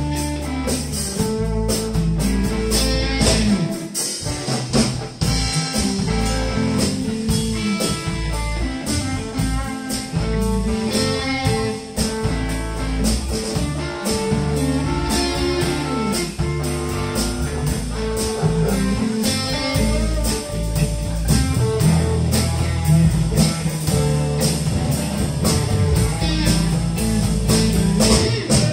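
Live electric blues band playing: electric guitars over electric bass and a drum kit keeping a steady beat.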